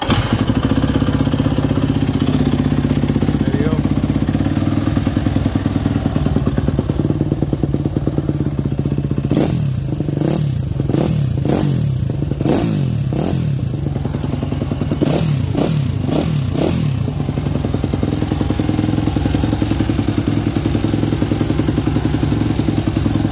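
2005 Yamaha YZ250F's four-stroke single-cylinder engine catching at once and idling, then revved in a series of quick throttle blips that rise and fall before settling back to idle. It is the engine's first run after a complete top-end rebuild with new piston, rings and valves.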